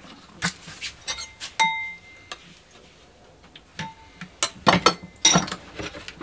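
Metal spoon clinking and scraping against a ceramic bowl while stirring a thick sauce: a run of irregular sharp clinks, two of which leave the bowl briefly ringing, and a quicker cluster of clinks near the end.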